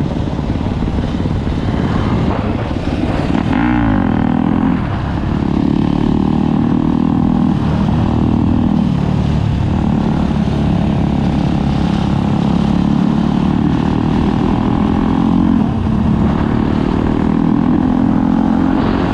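Four-stroke dirt bike engine (a 2018 Yamaha YZ250F) running under way, its pitch climbing as it revs and dropping back at each gear change, several times over. A quad's engine runs close alongside.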